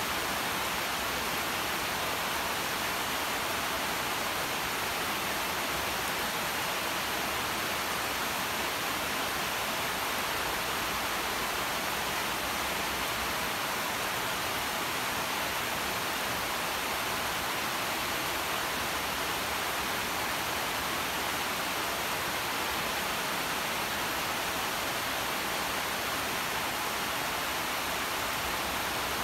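Steady rain falling, an even hiss with no single drops, thunder or other events standing out.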